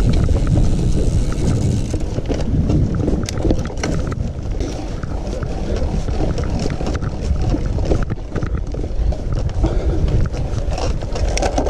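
Wind buffeting the microphone of a camera on a moving mountain bike, a steady low rumble with many small rattles and knocks from the bike over rough ground.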